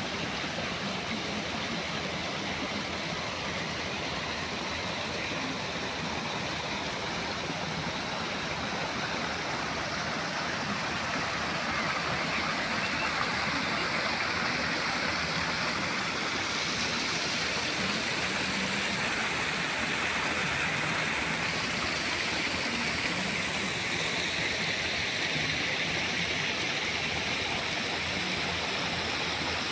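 Garden stream running over rocks in a small cascade: a steady rushing of water, a little louder from about halfway.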